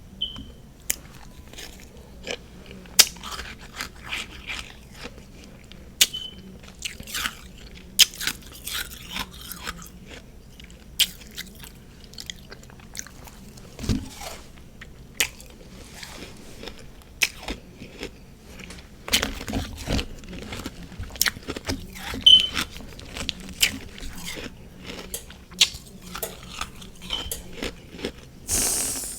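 Refrozen freezer frost, mixed with powdered sugar and whipped cream, being bitten and chewed: irregular crisp crunches, with a louder crunch near the end.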